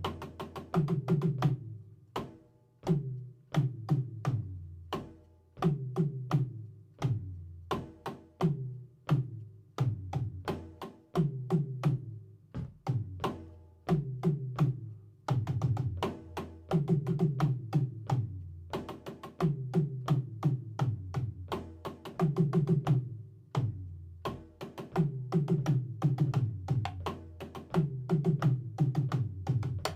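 A drum kit played in a steady repeating groove. A cluster of low, pitched drum hits comes back about every two seconds, with lighter strikes between.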